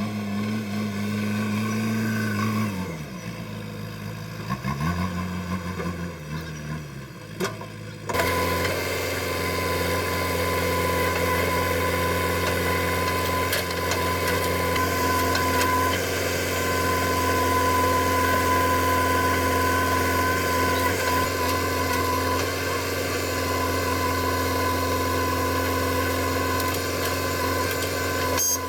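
JCB backhoe loader's diesel engine running, its pitch dropping and rising twice in the first few seconds as the revs change. About eight seconds in it switches abruptly to a louder, steady engine note that holds to the end.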